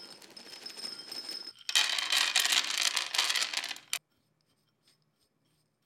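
Dry rustling with a thin steady high tone, then a sudden loud stretch of dense crinkling and crackling for about two seconds that cuts off abruptly.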